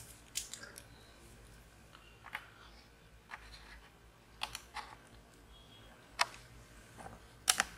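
Scattered light clicks and ticks of fingers handling a laptop LCD panel and its thin flat ribbon cable, the sharpest near the end.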